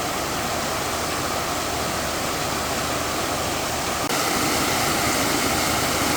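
Steady rushing hiss of white-noise-like sound spread evenly from low to high pitches, stepping up a little in loudness about four seconds in.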